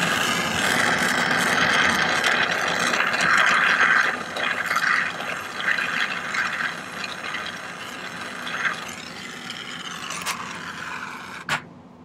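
Jeweller's torch flame hissing steadily while soldering a jump ring onto a sterling silver pendant. It is louder for the first few seconds, then a little quieter, and cuts off near the end.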